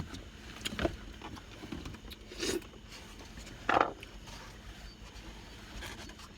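Takeout food packaging being handled: a few short rustles and knocks, the loudest a little past the middle.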